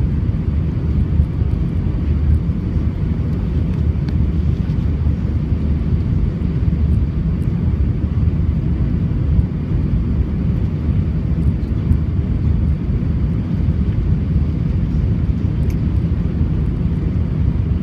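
Steady low rumble of an Airbus A320's engines and rushing airflow heard from inside the passenger cabin during final approach.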